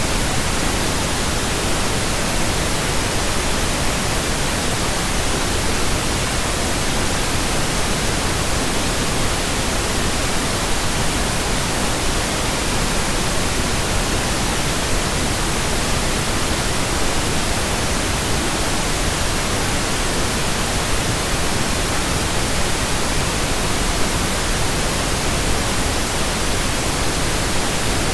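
Steady, electronically generated pink noise: an even, unbroken hiss spread across the whole range, with no change in level or character.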